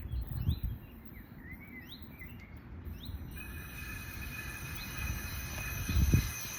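Birds chirping over outdoor background noise, then, from about three seconds in, steady high thin tones set in and grow louder as a DB Class 430 S-Bahn train approaches. Two low thumps, one near the start and one near the end.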